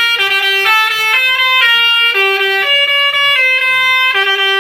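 Bus's Basuri multi-tone musical air horn, the 'telolet' horn, playing a melody: a run of held notes, each changing pitch about twice a second.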